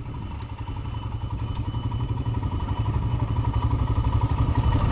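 Motorcycle engine running with a fast, even pulsing, growing steadily louder.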